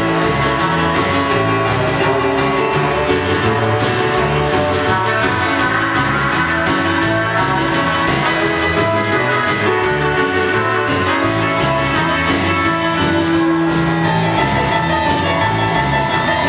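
Electric guitar playing an upbeat country song over bass and drums, with a steady beat.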